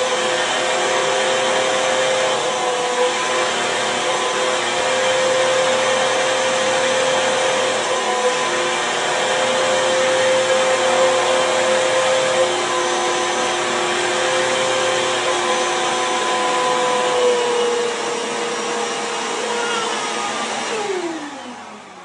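Vacuum cleaner running steadily with a whine over its rushing noise; near the end it is switched off and winds down, its pitch falling away.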